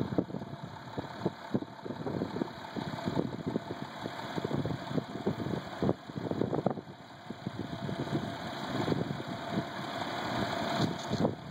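Truck engine idling, with an uneven, rumbling texture throughout.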